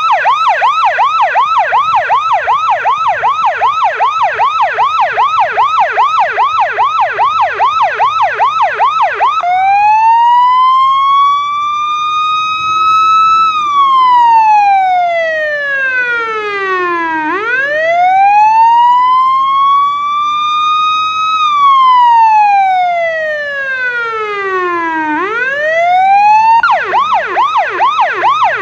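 Federal Signal PA 15A electronic siren sounding on test: a rapid yelp switches after about nine seconds to a slow wail that rises and falls twice, then changes back to the rapid yelp near the end.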